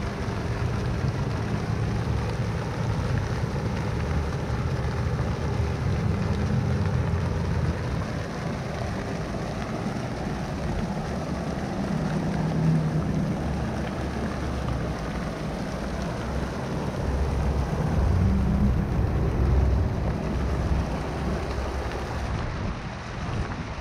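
City street ambience: a steady rush of traffic noise with wind buffeting the microphone, the low rumble swelling and easing in gusts.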